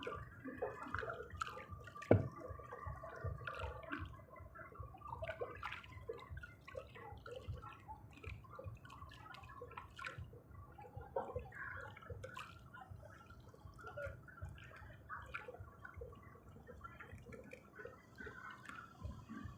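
Water dripping and gurgling, with many small irregular ticks and splashes and one sharp knock about two seconds in.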